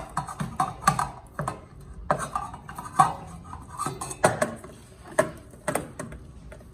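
A utensil clinking and scraping against a bowl in irregular strokes, stirring a filling of cold, unsoftened cream cheese and spices that is stiff to mix.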